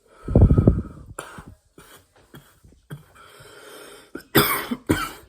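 A man coughing hard after a hit from a live resin vape cart: a heavy burst at the start, then a run of short coughs, the loudest two near the end.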